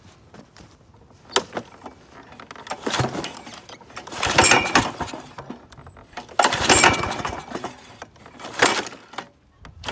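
A Troy-Bilt TB210 push mower's recoil starter pulled about four times, each pull a rattling whir of half a second to a second. The engine, primed with carburetor spray, tries to pop but does not start.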